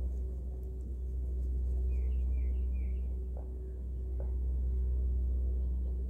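A low droning hum with held gong-like tones, swelling and fading slowly every few seconds. A few faint, short, high bird chirps come about two seconds in.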